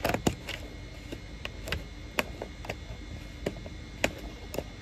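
Irregular light clicks and taps, about a dozen in a few seconds, from hands handling something close to the microphone.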